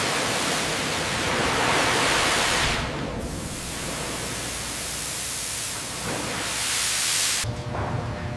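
Steady hiss of a compressed-air tool such as a spray gun, loud for the first few seconds, softer through the middle, swelling again and then cutting off suddenly near the end.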